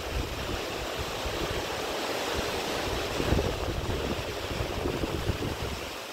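Steady rush of sea water churning along the side of a moving cruise ship, with wind gusting on the microphone in uneven low rumbles.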